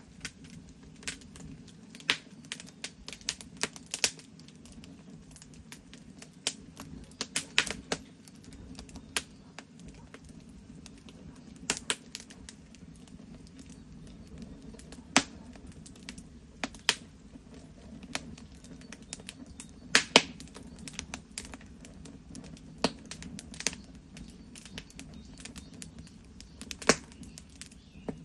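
Fire crackling, with sharp irregular pops over a steady low rumble.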